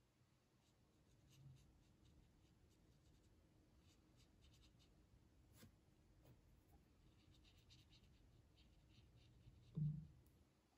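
Faint scratching of a small watercolour brush dabbing and stroking on paper, in short scattered touches that come thicker in the second half. A soft low thump comes just before the end.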